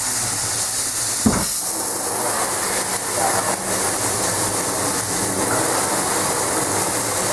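Bathtub hand-held shower running, a steady hiss of spraying water, with one brief low thump about a second in.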